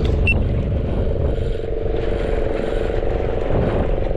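A steady engine drone over a low rumble, with one short click about a third of a second in.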